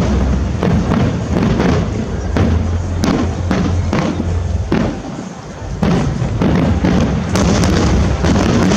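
Aerial firework shells bursting one after another in a dense barrage of bangs over a low rumble, easing briefly about five seconds in before picking up again.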